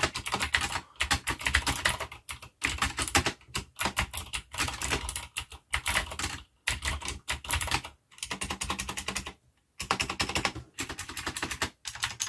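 Fast typing on a Cherry G80-3000 mechanical keyboard with Cherry MX Blue clicky switches: dense runs of crisp key clicks and clacks in bursts of a second or two, broken by short pauses. The board has no metal plate, with the switches on a plastic board, and it sounds hollow and shrill.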